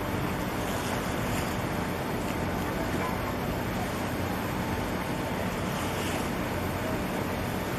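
Steady wind on the microphone and water noise, with a low, steady engine drone beneath, in a harbour where a large container ship is being berthed.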